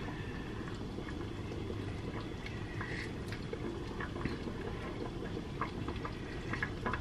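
A pot of soup simmering on the stove: a steady low bubbling with small scattered pops.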